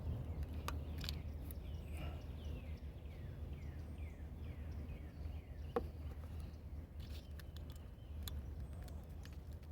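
A bird singing a quick run of about eight short falling notes a couple of seconds in, over a steady low outdoor rumble, with a few sharp clicks.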